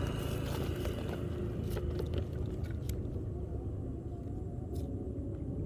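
Steady low rumble with a few light clicks and taps in the first three seconds.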